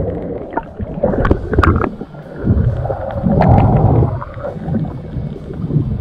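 Muffled underwater water noise picked up through a camera's housing: irregular sloshing and bubbling rumble with scattered sharp clicks.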